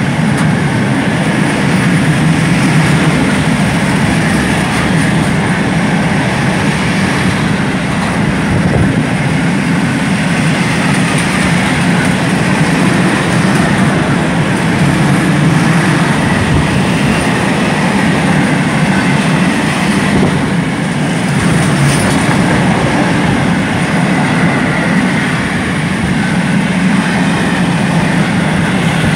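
Open-top freight wagons of a long freight train rolling past at close range: a loud, steady rumble and clatter of steel wheels on the rails.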